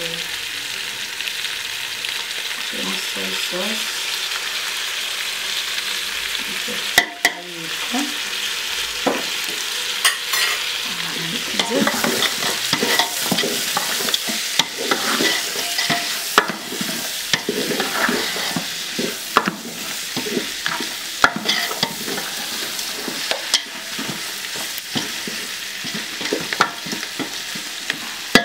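Beef shank pieces with chopped onions and peppers sizzling in an aluminium pot, with a steady hiss throughout. From about seven seconds in, a wooden spoon stirs the pot, with many quick scrapes and clicks against the metal.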